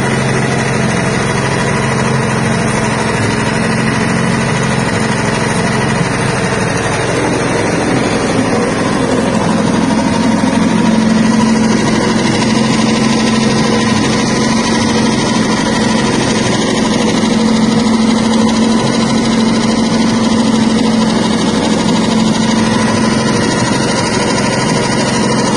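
Soybean skin-separating machine for wet tempeh soybeans running steadily: a constant motor hum with steady whining tones. The low hum shifts and grows a little louder about a third of the way in.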